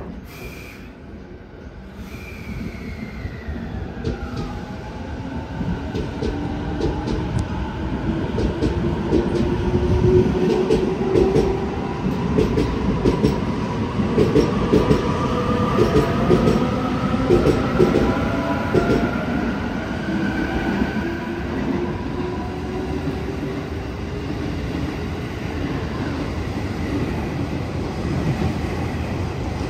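JR East 255 series electric train pulling away and accelerating: the motor whine rises in pitch in several upward glides as it gathers speed. From about a third of the way in, a quick run of wheel clatter over the rail joints grows louder as the cars pass close by.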